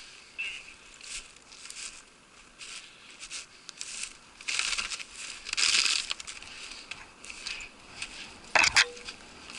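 Footsteps crunching in snow and clothing brushing through dry twigs and brush, in uneven bursts, with a sharp louder crackle near the end.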